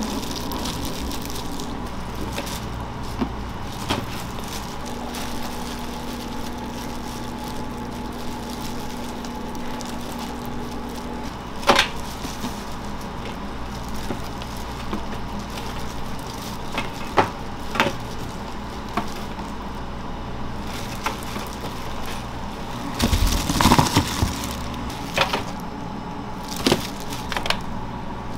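Food being made in a shop kitchen: a steady machine hum with scattered sharp knocks and clicks of utensils and handling, a few of them in quick succession a little past two-thirds of the way in.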